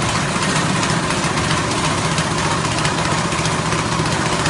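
A 6.5 hp petrol engine running steadily, driving a rice-husk grinding machine. A dense rushing noise sits over the engine's fast low beat and holds even throughout.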